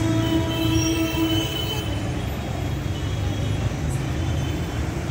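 Steady rumble of road traffic and idling bus engines, with a horn sounding one long steady note for the first second and a half.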